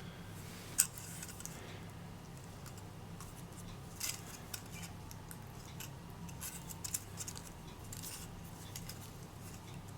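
Scattered light clicks and small handling noises of objects being picked up and set down, sharpest about a second in and again near four and seven seconds, over a faint low hum.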